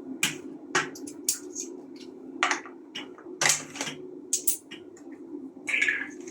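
Irregular sharp clicks and knocks from parts of a Dyson V12 cordless vacuum being handled, over a steady low hum.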